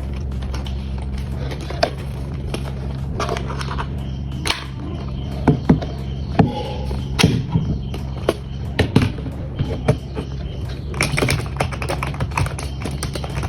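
Irregular clicks and taps, like keys being pressed on a Zebronics gaming keyboard, coming more thickly near the end, over a steady low hum.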